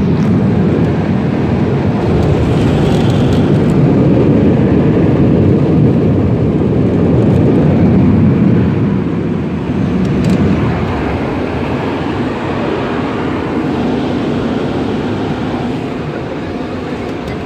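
Car wash tunnel dryer blowers, heard from inside the car: a loud, steady rush of air. It eases off somewhat about nine seconds in.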